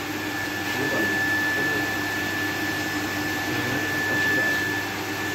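A 1000 LPH reverse-osmosis water plant running: the steady hum of its electric high-pressure pump with a constant high whine, unchanging throughout.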